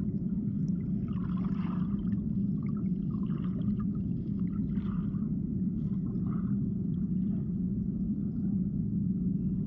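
Steady low rumble of river water heard by a camera submerged on the riverbed, muffled as sound is underwater. A few faint, soft gurgles come and go above it.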